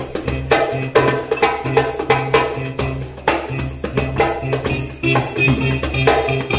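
Live sitar and djembe duet: plucked, ringing sitar notes over a steady rhythm of hand strokes on the djembe.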